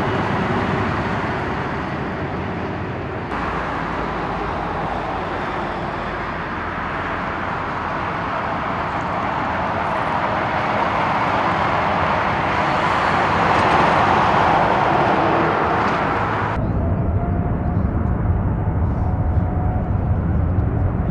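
Jet airliner engines of a taxiing Boeing 777-200, a steady rushing noise that swells in the middle. The sound changes abruptly about three seconds in, and again near the end, where a deeper rumble takes over.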